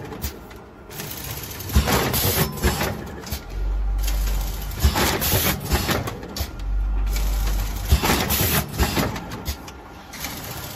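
Vertical form-fill-seal powder packing machine running through its bagging cycle: clicks, knocks and short bursts of noise repeating about every three seconds. A low hum lasting a little over a second comes in twice.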